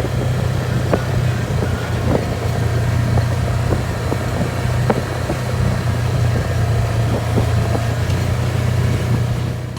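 A motor vehicle running with a steady low engine hum under heavy road and wind noise, with scattered light knocks and rattles.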